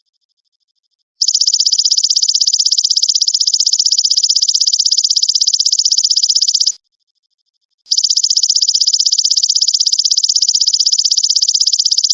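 Belalang emas (golden grasshopper) calling in long, rapidly pulsed, high-pitched buzzing trills, each about five seconds long. The first starts about a second in, and a pause of about a second comes before the next.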